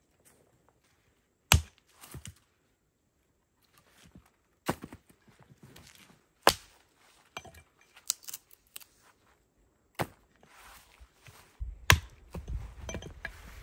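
Wood being chopped with an axe: about seven sharp, single blows spaced irregularly a second or two apart, with a low rumble near the end.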